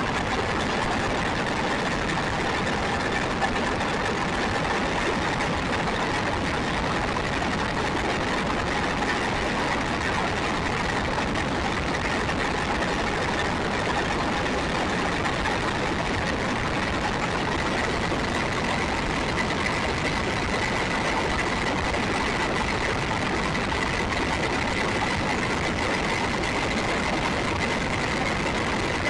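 RC buggy's motor and gears whining steadily, its pitch creeping slowly up, over a constant rush of tyre and wind noise on the rough road, heard from a camera mounted on the car.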